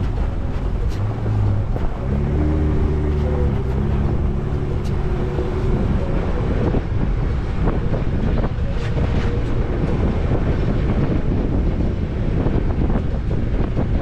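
Jeep Wrangler driving over a sandy dirt trail, heard from a camera mounted on the outside of the body: wind buffets the microphone over the engine and tyre noise, with scattered knocks from bumps and stones. From about two to six seconds in the engine's drone stands out more clearly.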